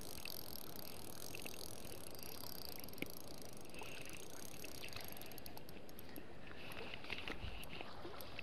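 Spinning reel being wound as a hooked small perch is brought in to the bank, over steady outdoor noise. From about five seconds in there is a run of light clicks and rattles of reel and tackle handling.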